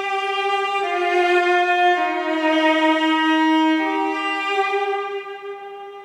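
Solo cello played with the bow: a slow line of long held notes, each a second or two long, dipping lower and coming back up, then fading near the end.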